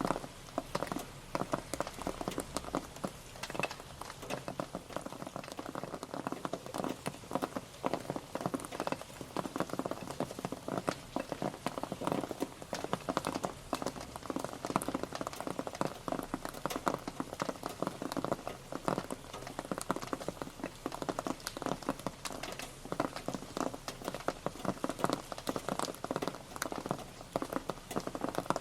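Rain pattering steadily on a surface: a dense, continuous stream of small drop impacts.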